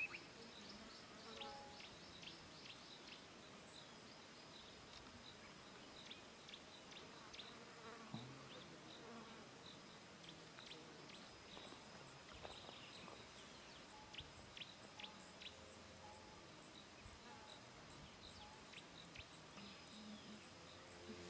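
Faint outdoor ambience: many short, scattered high-pitched chirps over a faint steady high hum, with no speech.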